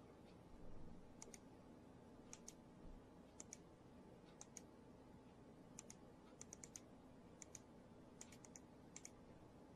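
Faint, sharp computer clicks over near silence, mostly in quick pairs about once a second and a few times in short runs of three, as a computer is clicked through a series of photos.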